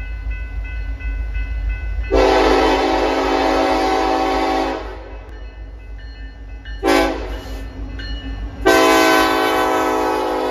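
BNSF diesel freight locomotive's horn, several notes sounding together, blowing a long blast, then a short one, then another long one that holds past the end: the sequence locomotives sound approaching a grade crossing. Under it runs the low rumble of the approaching locomotives.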